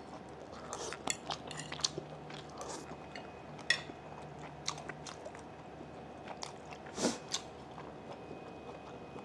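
Close-miked chewing and mouth sounds from a person eating, with scattered sharp clicks of a fork against a plate.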